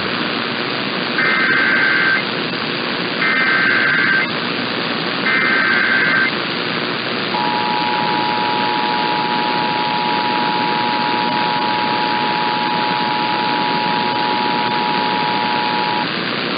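Emergency Alert System activation over AM radio: three one-second bursts of SAME header data tones, about a second apart, then the steady two-tone attention signal held for about nine seconds. Constant radio hiss runs underneath.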